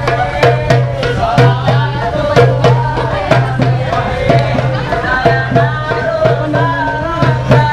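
Upbeat music with quick hand-drum strokes and a gliding melody line over a repeating low bass pulse.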